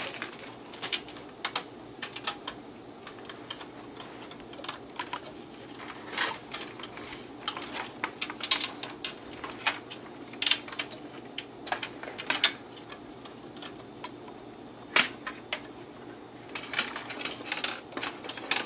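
Irregular metallic clicks, taps and light scrapes from hands working a sheet-metal floppy drive bracket inside an open Macintosh SE/30 case, with a few sharper clicks in the second half, over a faint steady hum.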